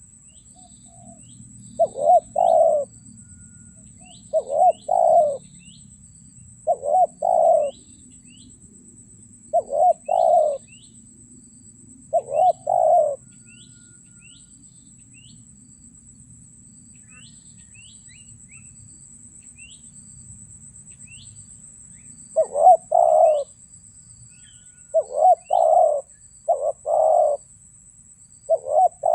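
Spotted dove (tekukur) cooing: short phrases of a few notes, each about a second long, repeated about every two and a half seconds. After five phrases there is a pause of several seconds, then four more phrases. Small birds chirp faintly in the background.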